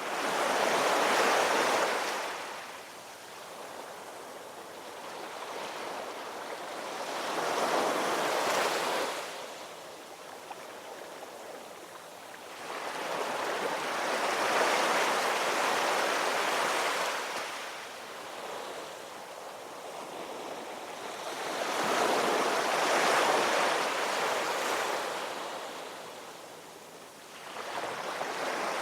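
Ocean surf: waves break and wash back in a slow rise and fall, about seven seconds apart. There are four surges, with the next one building near the end.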